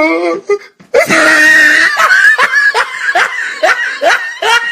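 A man laughing hysterically: a loud, high, shrieking burst of laughter about a second in, then rapid cackles about four a second.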